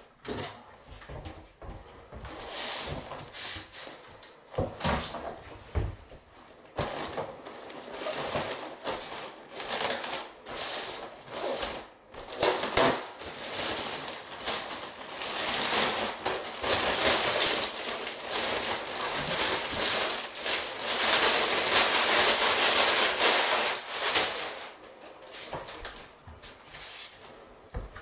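Plastic wrapping on a compressed roll of loft insulation rustling and crinkling as it is pulled and torn off, busiest in the middle of the stretch and dying away near the end. Scattered knocks and scrapes come before it.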